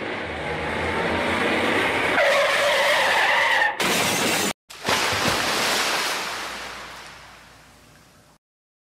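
Dramatised car-crash sound effects: tyres skidding and screeching with a held squeal, then a sudden loud crash about four seconds in, followed by a rushing noise that fades away over the next few seconds.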